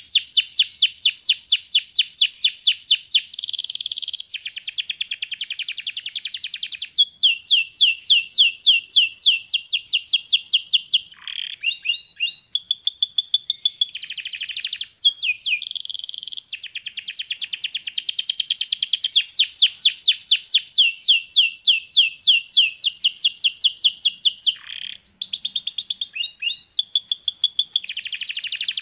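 Yellow domestic canary singing: fast rolls of one repeated note after another, each roll held for a few seconds before the song switches to a new roll, with brief gaps between phrases.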